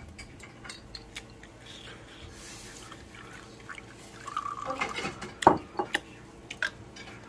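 Soju poured from a glass bottle into a glass tumbler: a short gurgle about four seconds in, then a few sharp clinks and knocks of glass.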